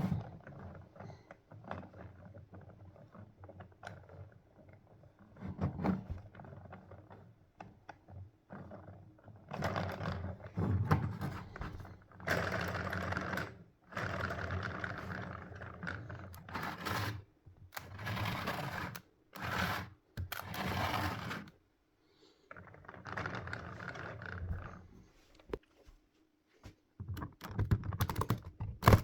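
Rattling, clicking clatter of the Lego vacuum engine's plastic pistons and cylinders moving, in several short clips that cut off abruptly.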